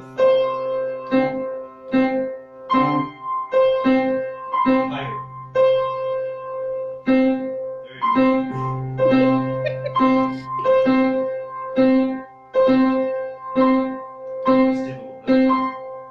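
Grand piano being played: notes and chords struck at an even pace, about three strikes every two seconds, each ringing on into the next.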